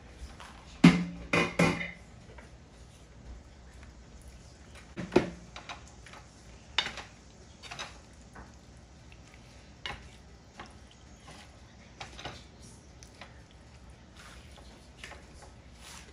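Cooked penne tipped into a nonstick skillet of chicken and stirred with a wooden spoon: a loud clatter with a short ringing tone about a second in, then scattered light knocks and scrapes of the spoon against the pan.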